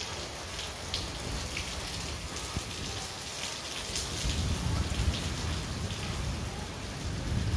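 Heavy rain falling steadily on foliage and a paved courtyard, with a low rumble building in the second half.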